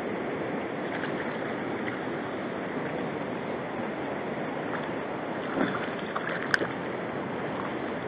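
Steady rush of river water and wind on a small camera's microphone, with a few light knocks about two-thirds of the way through.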